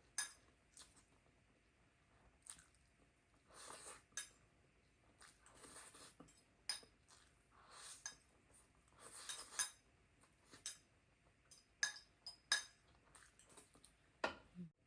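Close-up eating sounds: chewing on food, with scattered sharp clinks of utensils against a dish.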